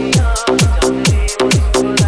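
Electronic dance music, a DJ remix: a heavy kick drum whose bass drops in pitch on every beat, about two beats a second, under sharp, quick percussion hits.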